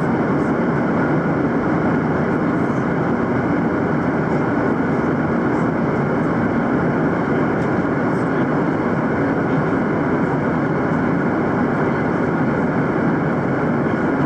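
Steady cabin noise inside a Boeing 737-800 climbing after takeoff: the even rush of its CFM56 jet engines and the airflow past the fuselage, unchanging throughout.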